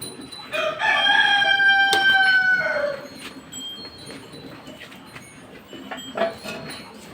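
Rooster crowing: one long, loud crow lasting a little over two seconds that dips in pitch at its end, followed about three seconds later by a short, fainter call.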